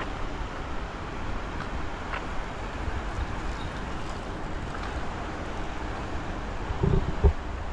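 Steady wash of road traffic noise from passing cars, with a couple of low thumps near the end.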